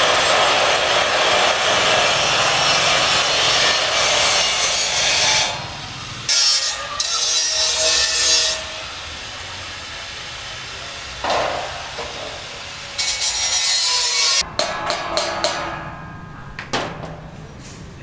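Angle grinder working on steel beams: a loud, hissing grind for about five seconds, then shorter passes that start and stop.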